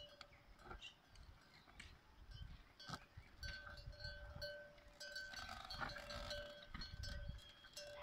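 Faint, repeated ringing of a small bell on a pair of oxen pulling a plough, over a low rumble and a few soft knocks.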